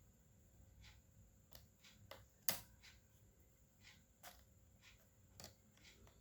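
Light clicks and taps of hands handling the parts of an open laptop during a RAM upgrade, about ten in all, with one sharper click about two and a half seconds in.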